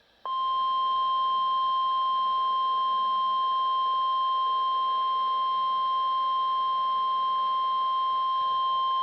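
Weather Radio Canada's 1050 Hz warning alarm tone: a single steady, unbroken tone that begins a moment in. It is sent as a test to trigger the tone alarm on weather radio receivers.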